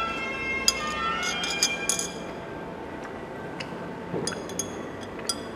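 Metal spoon clinking against a glass of iced drink: a quick run of ringing clinks in the first two seconds and a few more around four seconds in, with music in the background.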